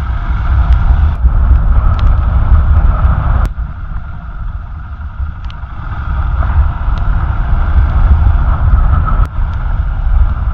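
Motorcycle being ridden along a rough, wet mountain road, heard from on the bike: a loud, steady low rumble of engine and road noise. It breaks off abruptly about three and a half seconds in and runs quieter for a couple of seconds before building again.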